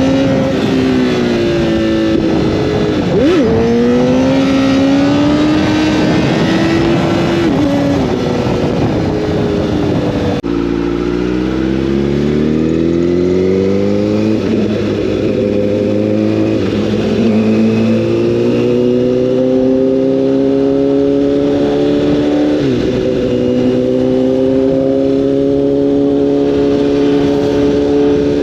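Honda CBR1000RR inline-four sport bike engine running under way, its pitch rising and falling with throttle and gear changes. About ten seconds in the sound breaks off abruptly. Then the engine note climbs slowly and steadily through the rest.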